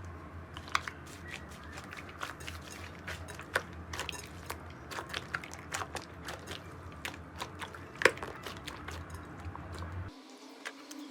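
Slime being squeezed and pressed by hand, giving dense, irregular crackling clicks and pops over a steady low hum that cuts off about ten seconds in.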